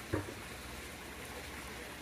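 A hand pushing into the water of a small barrel pond gives one brief splash just after the start, over a steady patter of water dripping onto the surface.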